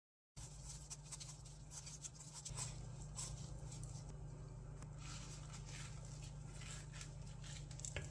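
Faint scrapes and light taps of fresh peaches being peeled and sliced over a plate, with a steady low hum underneath.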